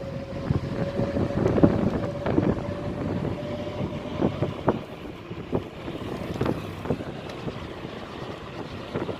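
Rushing river water with wind buffeting the microphone in irregular gusts. A thin steady tone holds through the first four seconds or so.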